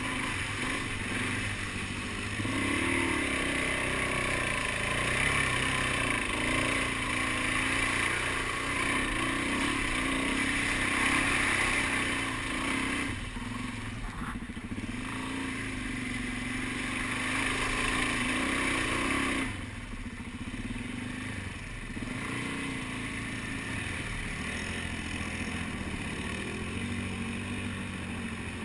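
Suzuki DR-Z400 single-cylinder dual-sport motorcycle engine running under load, revving up and down as it is ridden along a wet trail. It eases off briefly about halfway through, then drops sharply about two-thirds of the way in and runs on more quietly.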